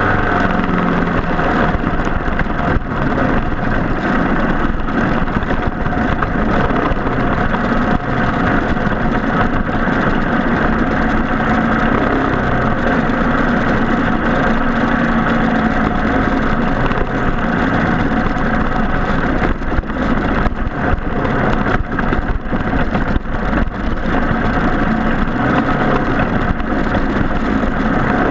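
Briggs & Stratton Animal four-stroke kart engine running hard without a break, its pitch rising and falling with the throttle, with a few short dips in loudness past the middle.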